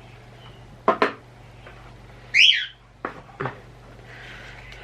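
A bird calling in short whistled notes: a sharp chirp about a second in, then a loud whistle that arches up and falls away about two and a half seconds in, followed by softer falling notes.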